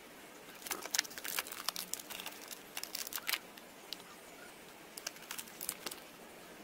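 Plastic wrapper of a packet of DAS modelling clay crinkling as a piece of clay is pulled out: a run of quick crackles over the first few seconds, then a few more about five seconds in.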